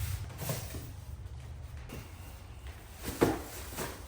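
A cardboard box being cut open with a utility blade and handled: light scrapes and rustles, with a sharp knock about three seconds in, over a low steady hum.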